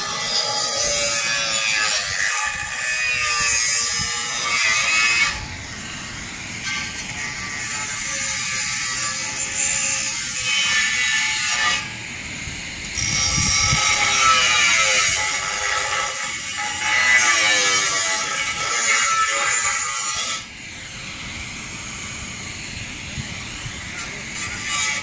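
Electric angle grinder cutting a corrugated sheet, its whine wavering in pitch as the disc works through the material. It runs in three long cuts with short pauses about 5 and 12 seconds in, then drops to a quieter level about 20 seconds in.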